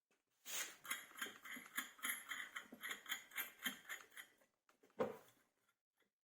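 A quick run of small scraping clicks, about four a second, then a single knock about five seconds in.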